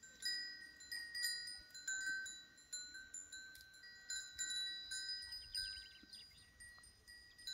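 Small metal chimes ringing: a handful of fixed high pitches struck irregularly, several times a second, each ringing on and overlapping the next.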